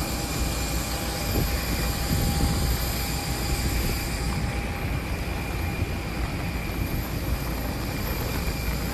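Steady aircraft noise: an even rushing roar with a low rumble underneath and a faint high whine held throughout.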